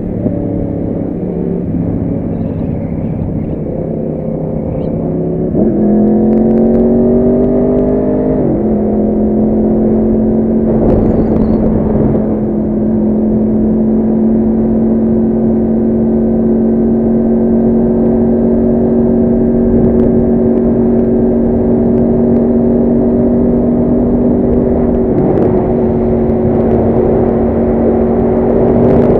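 Motorcycle engine running at steady revs with wind and road noise. About six seconds in the revs climb, then settle to a steady, slightly higher pitch that holds to the end.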